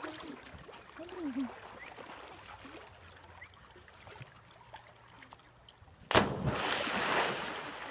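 A dog leaps off a rock into a river pool and hits the water with one loud splash about six seconds in; the splash dies away over about a second and a half.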